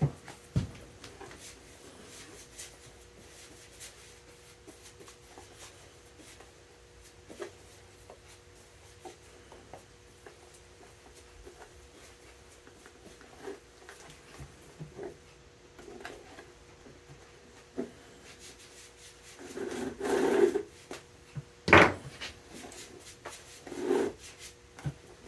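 Hand-stitching a leather welt onto a boot: an awl pushed through the leather and thread drawn through it, heard as faint scratching and rubbing with scattered small clicks. A few louder rubs and a sharp knock come near the end.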